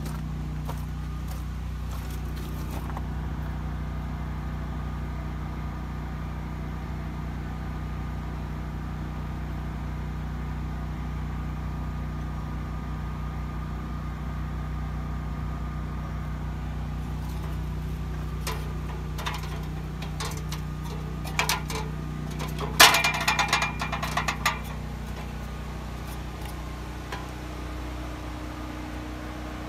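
John Deere 1640 tractor's three-cylinder diesel engine idling steadily. About two-thirds of the way through, a quick run of sharp metallic clanks and knocks rises over it.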